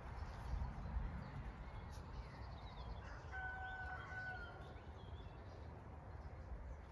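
A rooster crowing once, faintly, a bit after three seconds in: one held, level-pitched call about a second long. A steady low wind rumble on the microphone runs underneath.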